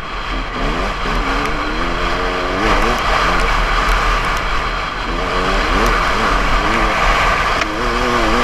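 Dirt bike engine being ridden hard, its revs climbing and dropping again several times, over loud wind rush on the bike-mounted camera's microphone.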